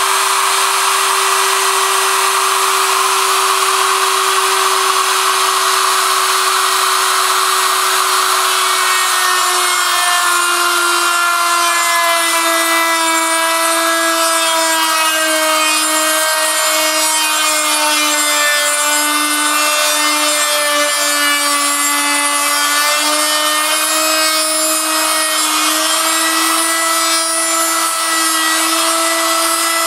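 Hand-held rotary tool running at high speed in a homemade copy milling machine, its bit cutting a wooden lure blank. A steady whine sits over a rasping cutting hiss. From about nine seconds in, the whine drops a little in pitch and wavers as the bit works the wood.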